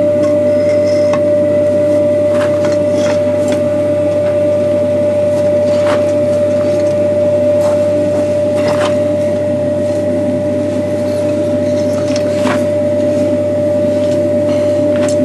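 Forge air blower running steadily, blowing the coal fire while a steel bar heats in it, as a constant hum with a steady tone. A few short clicks are scattered through it.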